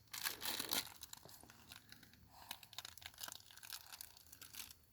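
Faint, irregular crinkling and rustling of dry material, louder in the first second, then scattered soft crackles.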